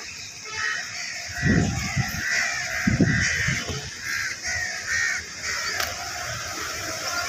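Crows cawing over and over, a steady string of short calls. About a second and a half in and again a second and a half later come two dull low thumps, the loudest sounds here.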